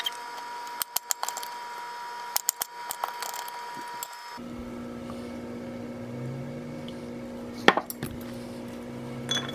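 Knife cutting asparagus stalks on a stone countertop: a run of sharp knocks and snaps, in clusters. About four seconds in, this gives way to a steady low hum, with one sharp click near the end.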